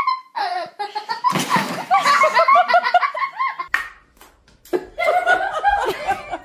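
People laughing hard in repeated bursts, with a few sharp taps in a short lull near the middle.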